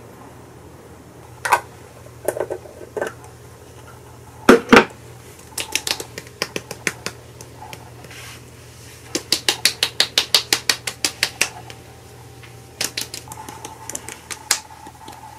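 Hands patting skincare cream onto the face: light slaps in runs, with one fast steady run of about five pats a second in the middle. A couple of sharper knocks about four and a half seconds in.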